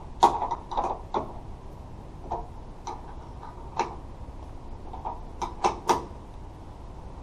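Irregular sharp metallic clicks and clinks from a hand tool and mounting hardware being worked at a pickup's tailgate pillar, about a dozen of them, with a cluster in the first second and another near the end.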